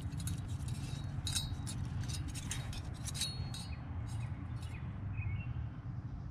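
Small metal brake-pad hardware clips clinking together in the hands: a string of light clinks and clicks through the first three seconds or so, thinning out after, over a low steady background rumble.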